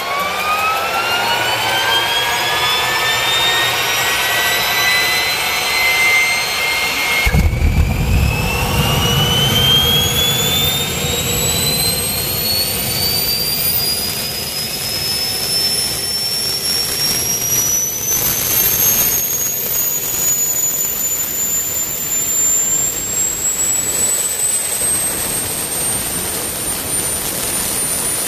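Small aircraft gas-turbine generator, rated at 40,000 rpm, starting up: a whine climbs steadily in pitch as the turbine spools up. About seven seconds in, a sudden burst of low rushing noise joins it as the turbine lights off, and the whine keeps rising toward speed.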